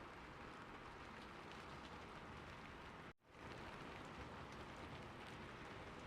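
Recorded rain ambience: a steady, faint hiss of rainfall with light drop ticks, cutting out for a split second about three seconds in before carrying on.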